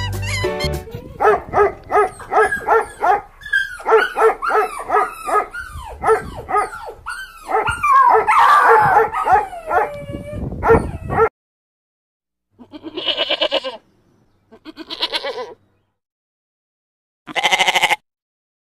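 A Pomeranian puppy yapping in a rapid string of short, high yips. After a sudden cut to silence, goats bleat three times, each call about a second long.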